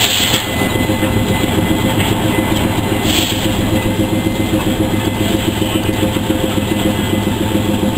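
An engine runs steadily with a fast, even pulsing beat, and two short hisses sound about a quarter second and three seconds in.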